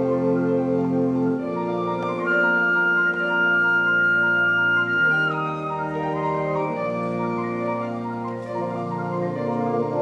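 School wind ensemble playing a slow passage of sustained chords, with one high note held for about three seconds near the middle.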